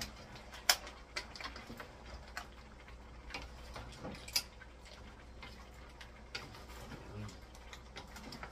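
Wooden spatula knocking and scraping against a wok while stirring a seafood stir-fry, giving irregular light clicks and taps; the sharpest come about a second in and again about four seconds in.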